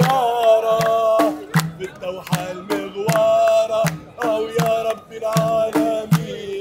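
A man singing a call-like song in long held notes over a steady frame-drum beat, with hand claps keeping time.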